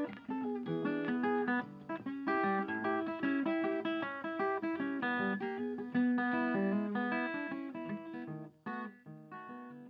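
Background music: plucked acoustic guitar playing a quick, bright line of notes, dropping away in level near the end.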